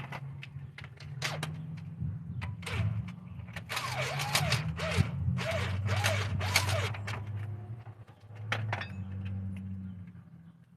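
Tools and metal parts being handled: clicks and knocks, then a cluster of short scraping, rattling bursts in the middle, over a steady low hum.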